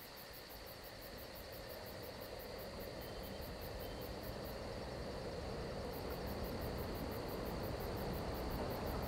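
Crickets chirping in a rapid high pulse, about five a second, pausing for a second or so near the middle. Beneath them, a low noisy background swells steadily louder.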